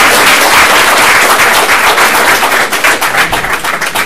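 Audience applauding, the dense clapping thinning to scattered claps near the end.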